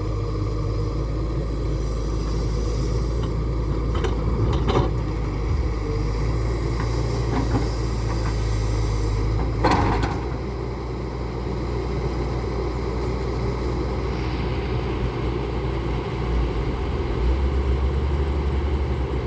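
Tata Hitachi 210 excavator's diesel engine running steadily while it loads a tipper. There are a few sharp knocks, the loudest about ten seconds in, and the engine note dips after that and picks up again near the end.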